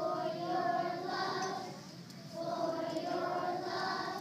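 A group of young children singing together in two held phrases, with a short pause between them about two seconds in.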